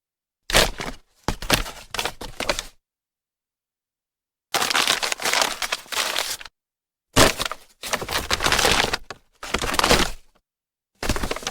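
Brown paper bag being crumpled and crushed by hand: several bouts of dry crackling, a few short sharp crackles early on, then longer crumpling runs of one to two seconds, with dead silence between them.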